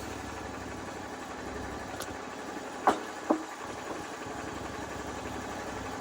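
Sawmill engine idling steadily, with two sharp knocks close together about three seconds in.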